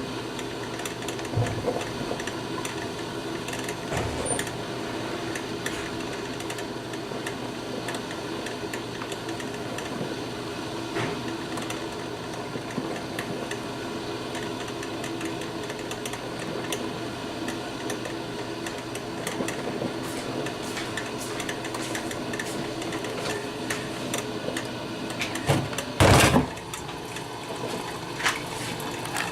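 1987 Black & Decker thermal carafe drip coffee maker running: a steady hum with light irregular ticks, and one loud knock near the end.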